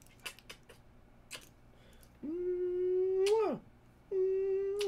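Yorkshire terrier giving two drawn-out, steady-pitched howls: the first rises at its end, the second falls away.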